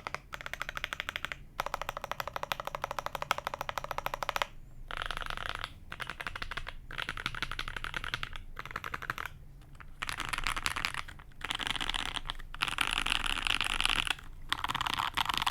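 Custom SG81M mechanical keyboard with lubed H1 switches on an FR4 plate and GMK keycaps, typed on quickly in bursts with short pauses. The first few seconds are distinct rapid keystrokes; later runs are faster, with the strokes blurring together, and grow louder near the end.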